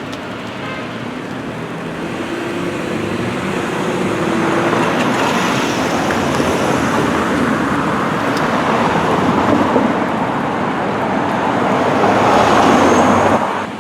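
Steady rushing noise, like road traffic, swelling over the first few seconds, staying loud, then cutting off abruptly near the end.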